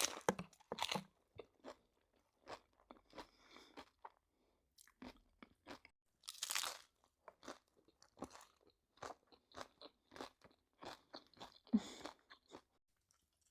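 Close-miked chewing of crunchy food, with irregular crackling crunches and louder bites near the start and about six and a half seconds in.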